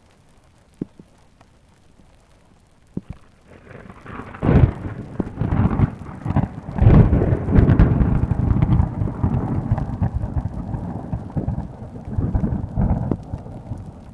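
A thunderclap rolls in about three and a half seconds in, with its loudest cracks near four and a half and seven seconds, then keeps rumbling and slowly fades. Light rain falls beneath, with two sharp ticks before the thunder.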